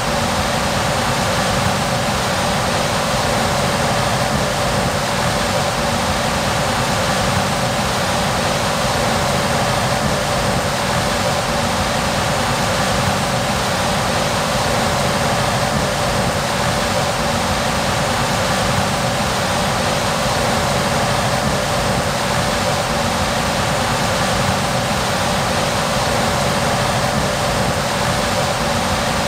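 Claas Trion 530 combine harvester running steadily: an unchanging drone with a constant whine through it.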